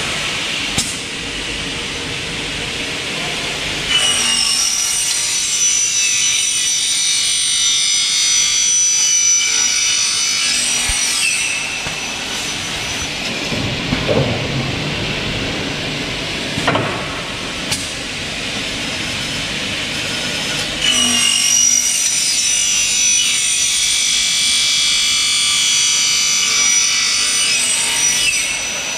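Double-head aluminium cutting saw cutting 2.2 mm aluminium profile, two passes of several seconds each with a high-pitched ringing whine of blade through metal. Between the cuts the machine runs with a lower steady hiss and a few sharp clicks.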